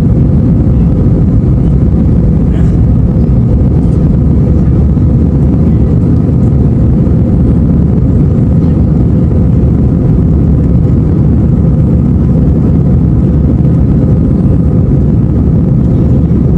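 Jet airliner cabin noise from the engines and airflow: a steady, loud low rumble with a faint, even hum over it.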